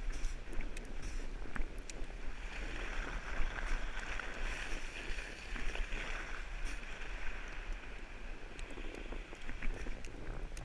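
Sled sliding down a snowy road: a steady scraping hiss of snow under the sled, dotted with small knocks and crunches, with wind on the microphone.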